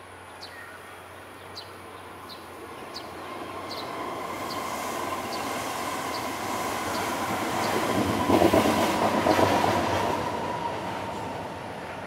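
Juvenile Eurasian tree sparrow giving short, sharp, downward-slurred chirps at regular intervals, about one every two-thirds of a second. A loud passing rumble with a steady whine swells from about a third of the way in, peaks around two-thirds through, drowns out the chirps and fades near the end.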